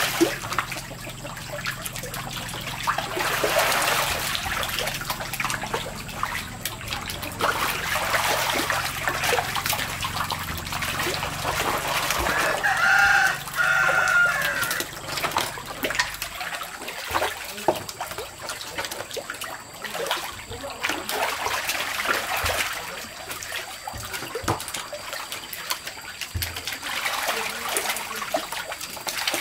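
Catfish splashing and thrashing in shallow water in a concrete tank as they are scooped up with a plastic basket. A rooster crows once about halfway through.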